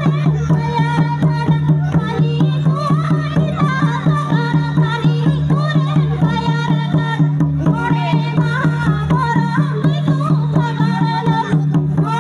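Santali Sohrai dance music: a fast, even drum rhythm with singing, over a steady low hum.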